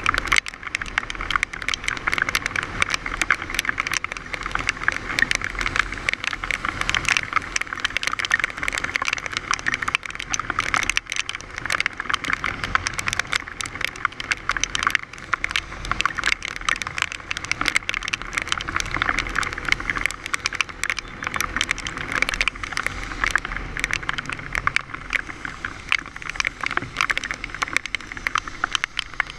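Heavy rain striking a camera on a moving motorbike: a dense, uneven crackle of drop hits over steady road noise on a wet road.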